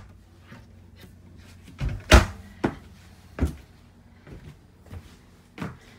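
A string of hard knocks and thumps inside a boat's cabin, like hatches or cupboard doors and steps on wooden boards. The loudest comes about two seconds in, three more follow within the next second and a half, and a few fainter knocks come after.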